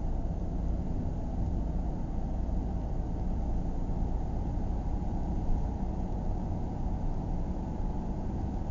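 Steady low rumble of a car driving along, engine and tyre noise heard from inside the cabin.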